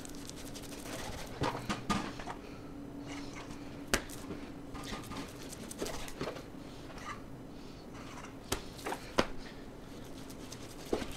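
Beef top sirloin being sliced into steaks with a knife on a cutting board: quiet cutting with scattered light knocks and clicks as the blade meets the board and the cut steaks are set down. The sharpest knocks come about four seconds in and twice more near the nine-second mark, over a faint steady hum.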